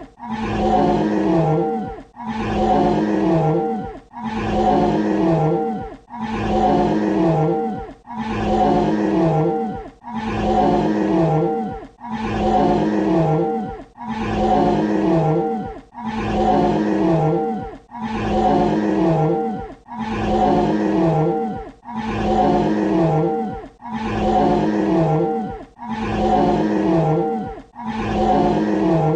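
Dinosaur roar sound effect: the same roughly two-second growling roar looped over and over with short gaps, each roar dipping lower in pitch at its end.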